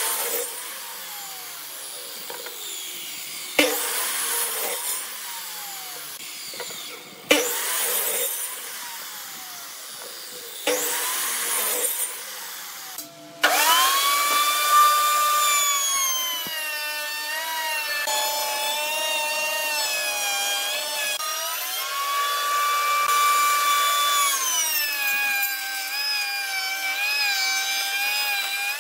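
Electric miter saw making four short cuts through pine board, the blade spinning down with a falling whine after each. Then a router table motor runs continuously with a steady whine, its pitch dipping and recovering as the board is fed past the bit.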